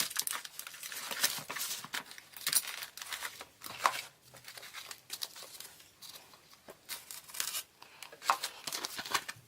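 Packaging being torn open and crinkled by hand, in irregular rips and rustles with a quieter stretch midway.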